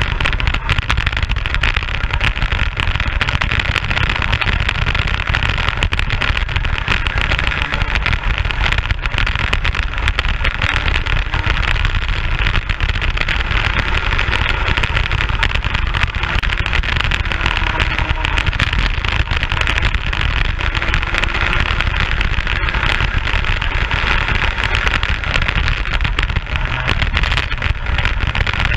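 Racing kart at speed, heard from its onboard camera: steady wind rush over the microphone with the kart's engine running underneath, its pitch rising and falling now and then through the corners.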